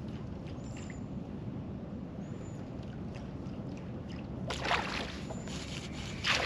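A largemouth bass strikes a topwater bait with a sudden splash about four and a half seconds in, then the hooked fish splashes and thrashes at the surface near the end. Before that there is only a steady low background.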